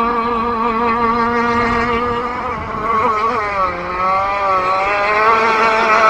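Two-stroke gas engine of an SLR Thunder RC gas boat running on the water. Its pitch wavers, drops as the throttle eases off about three seconds in, then climbs back up near the end. The engine is on stock, untuned settings.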